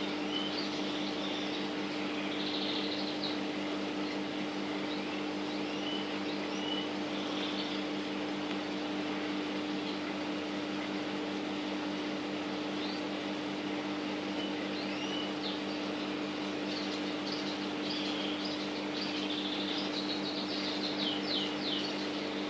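Parrots chirping in short scattered calls, with a quick run of repeated chirps near the end, over a steady mechanical hum.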